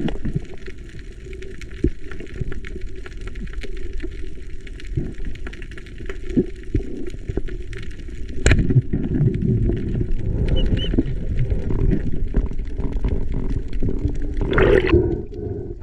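Underwater sound through a camera housing: a steady low rumble of moving water with scattered clicks, one sharp snap about halfway through, and a louder rush near the end.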